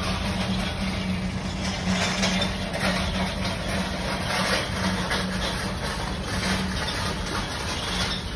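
Espresso machine pump humming steadily while a shot is pulled, cutting off about seven seconds in, over street background noise.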